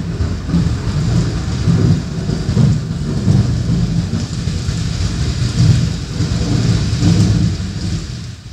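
Recorded rain-and-thunderstorm sound effect played over the hall's speakers: a steady hiss of rain with a deep rolling rumble, fading out near the end.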